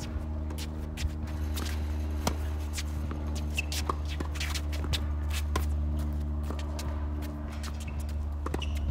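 Tennis singles rally on an outdoor hard court: sharp pops of the ball off racket strings and bounces on the court, mixed with scuffing footsteps, over a steady low hum.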